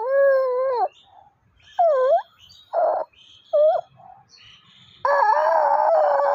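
A baby's voice in long, high drawn-out wails and short squeals: one held call at the start, three brief calls in the middle, and a long, rough wail from about five seconds in.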